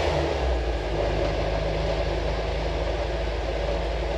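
Freshly restored Peugeot P4 military jeep's engine running steadily on the move, heard from inside the cab, with an even low rumble; the driver calls the engine absolutely sweet and the vehicle one of the quietest P4s he has driven.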